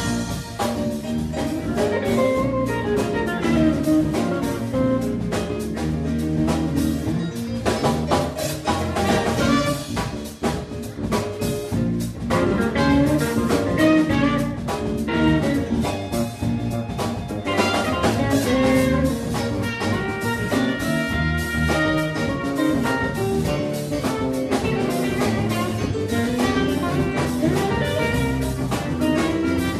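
Live band playing: trumpet lead over electric guitar, electric bass and drum kit.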